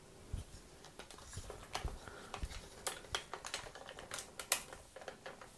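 A run of light, irregular clicks and taps, like small objects being handled, with the sharpest click about four and a half seconds in.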